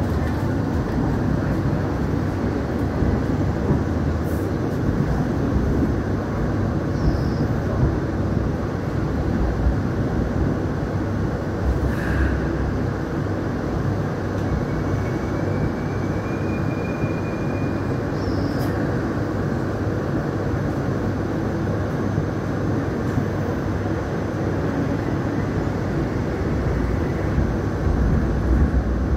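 Hong Kong Light Rail Phase III light rail vehicle running along the track with a steady rumble of wheels and motors. A faint high squeal rises briefly about halfway through.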